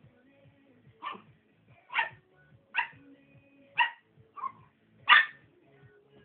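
West Highland white terrier puppy barking six times, short high yaps roughly a second apart, the last one the loudest.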